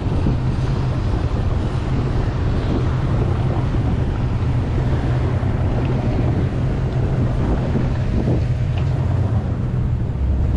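Steady wind buffeting the microphone, with the low, even running of the tow boat's engine underneath.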